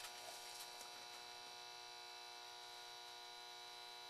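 Faint steady electrical hum with a high whine on top, a constant set of tones that does not change. A few faint small clicks in the first second.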